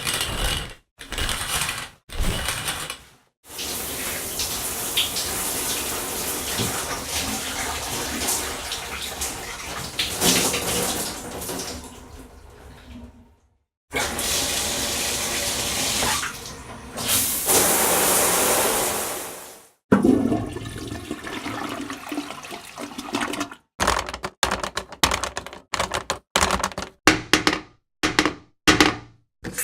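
A sequence of separate bathroom sounds. First comes about ten seconds of rushing water that swells and then tapers away. Next is a steady hiss of about six seconds that cuts off sharply, and near the end a rapid run of short strokes.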